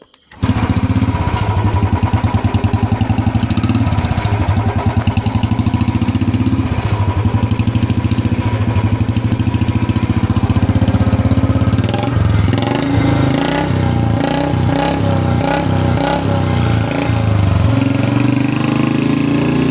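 2018 Royal Enfield Bullet 350 Standard's single-cylinder engine on its stock exhaust, with no bottle fitted. It starts and idles with an even thump, is blipped with the throttle several times from about twelve seconds in, and is held at a higher speed near the end.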